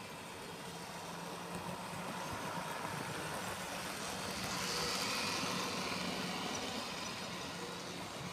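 OO gauge model trains running: a steady electric motor hum with wheels rolling on the track. It grows louder about four seconds in as a Class 66 locomotive hauling Freightliner coal hoppers passes close by.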